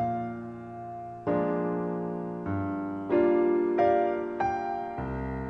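Background solo piano music: single notes and chords struck about once a second, each ringing and fading away.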